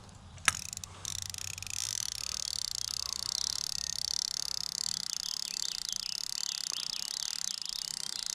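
Chorus of calling frogs and insects: a steady high buzz with many short chirps over it, setting in suddenly about a second in, after a single sharp click.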